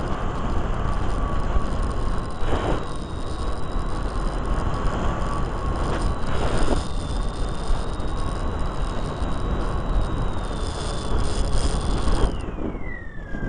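The small electric motor and propeller of a Micro Interceptor RC plane whine steadily under heavy wind rush on its onboard camera's microphone. About a second before the end, the whine falls in pitch and the sound drops as the throttle comes back.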